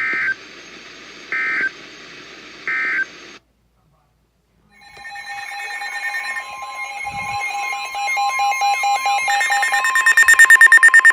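Weather radio alert signalling: three short bursts of digital data tones, the end-of-message code closing the previous warning, then a brief silence. An electronic warning alarm then starts and grows louder, ending in fast pulsing about ten times a second, announcing the next warning.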